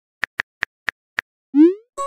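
Phone keyboard tap sound effects, five light clicks at an uneven pace, then about one and a half seconds in a short rising "bloop" as a text message pops into the chat.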